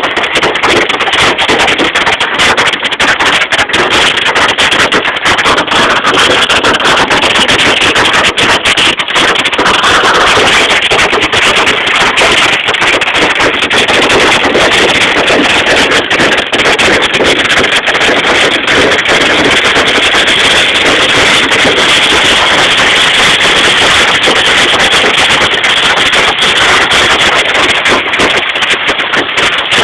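Hail pelting down hard: a loud, steady clatter of many small impacts that keeps up without a break.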